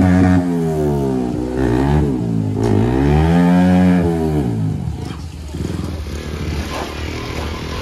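Yamaha R15 sport bike's single-cylinder engine revving hard while its rear wheel spins in shallow stream water during a burnout. The engine is held high at first, then its pitch swoops down and up several times, and it drops to a lower, rougher running after about five seconds.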